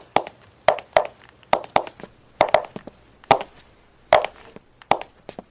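Footsteps on a hard floor: about a dozen sharp knocking steps in an uneven walking rhythm, with a short scrape about four seconds in.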